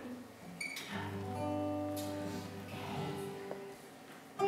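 Quiet instrumental music with held notes and a bright bell-like ping a little over half a second in; a louder guitar strum comes in at the very end.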